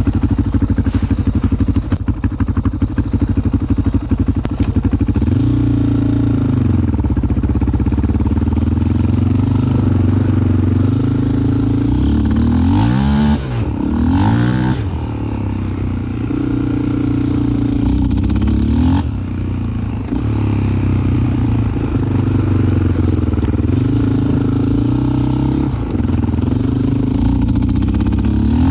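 Yamaha Raptor 660's single-cylinder four-stroke engine idling unevenly, with a rough, stumbling beat at low rpm that is typical of the misfire the owner reports below a certain engine speed. The throttle is blipped a few times, with the clearest rev up and back down about halfway through.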